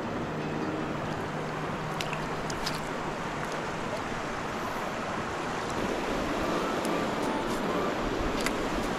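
Steady rush of flowing water at a stream-fed trout pond, with a few light clicks.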